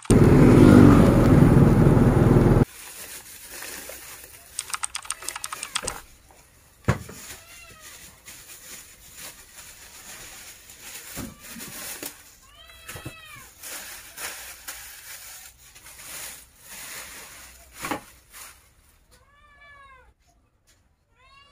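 Loud wind and vehicle noise from riding cuts off about two and a half seconds in. After that a cat meows several times in short rising-and-falling calls, with a couple of sharp knocks between them.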